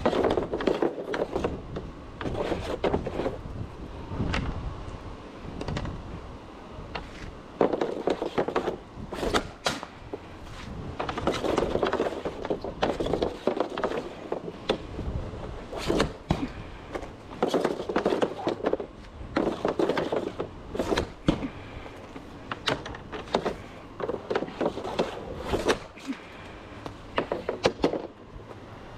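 Hockey stick and puck on plastic dryland tiles: the puck sliding and rattling over the tiles in recurring stretches of scraping, with many sharp clacks of the stick blade on the puck and the tiles.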